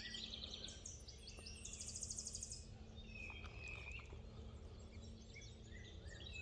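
Songbirds singing and calling, with a fast high trill about two seconds in, over a steady low background hum.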